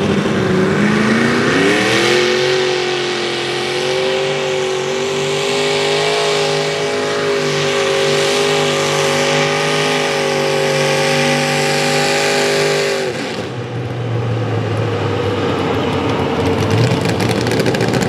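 A mini rod pulling tractor's engine comes up to full throttle over the first couple of seconds, then holds a steady, loud, high note as it drags the weight-transfer sled. After about thirteen seconds it drops off abruptly as the throttle is released at the end of the pass, leaving a lower, rougher engine sound.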